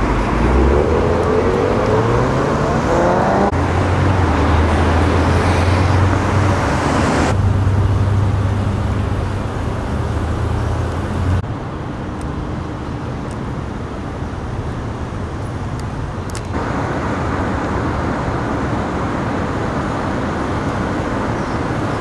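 City street traffic. In the first few seconds a car's engine rises in pitch as it accelerates past, then a steady low engine hum sits under the general road noise. The background changes abruptly several times.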